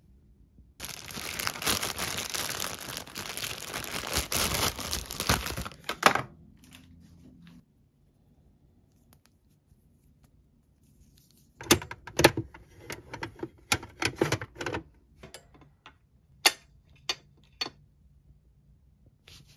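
Rustling and tearing for about five seconds, then, after a quiet pause, a run of sharp clicks and taps from small hard objects being handled.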